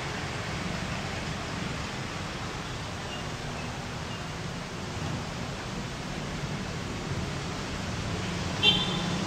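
Steady low hum of city background noise, with traffic by the road. A brief high-pitched sound stands out a little before the end.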